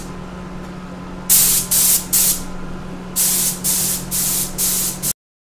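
Gravity-feed air spray gun hissing in short passes as paint is sprayed onto a plastic car bumper: three quick bursts, a pause, then five more, over a steady low hum. All sound cuts off suddenly near the end.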